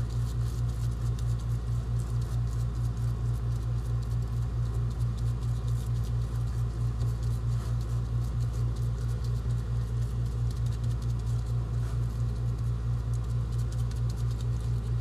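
Gloved hands pressing and patting raw ground-meat meatloaf mixture into a metal loaf pan: many soft, quick, wet patting clicks. A steady low hum runs underneath.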